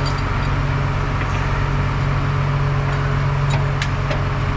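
Truck engine idling steadily with a low, even drone. A few light clicks come near the end.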